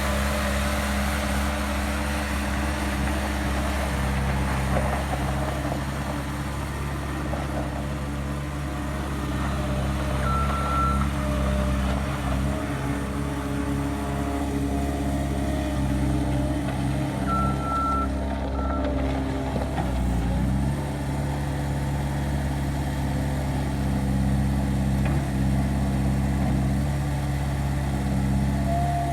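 Caterpillar 226-3 skid steer's diesel engine running steadily, its pitch shifting a couple of times as the machine works. Short high beeps sound about ten seconds in and again twice near the middle.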